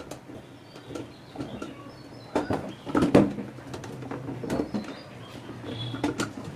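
Hollow plastic knocks and rattles from a plastic open flush cistern being handled and tilted while its flush handle and siphon fittings are pushed into place. The loudest knock comes about three seconds in, with a few smaller clicks around it.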